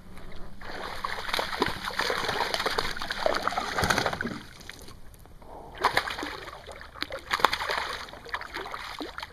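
Hooked largemouth bass splashing at the water's surface as it is reeled to the boat, in two spells of splashing with a short lull about halfway.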